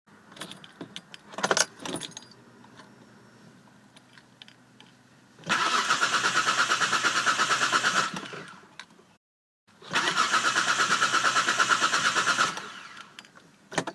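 Keys jingling and clicking in the ignition, then a Hyundai's starter motor cranking the engine twice, about three seconds each time, with a fast even beat. The engine does not catch: a no-start blamed on a faulty body control module and its immobiliser.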